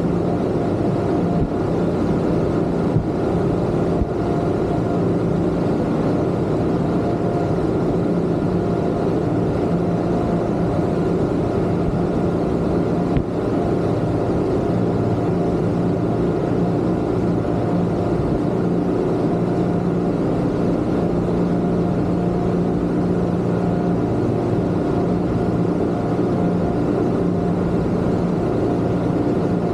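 Twin Yamaha 250 outboard motors on a Kingfisher 3025 GFX boat running at a steady cruising speed, their drone mixed with the rush of water and wind along the hull. A few brief knocks break in once or twice.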